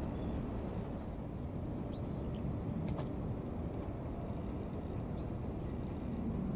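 Steady low outdoor background rumble, with two faint short high chirps, about two and five seconds in, and a faint click around three seconds.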